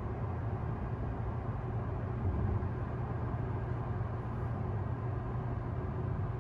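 A car driving at speed on a highway, heard from inside the cabin: steady tyre and road noise with a low engine hum.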